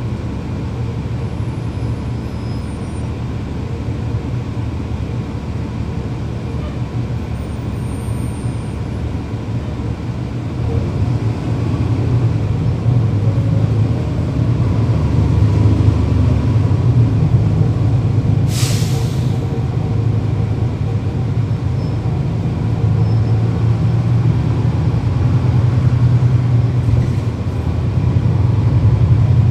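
Diesel engine of a 2012 NABI 40-SFW transit bus (Cummins ISL9), heard from inside while the bus is under way, growing louder about ten seconds in as the bus speeds up. A short, sharp hiss of air comes a little past halfway.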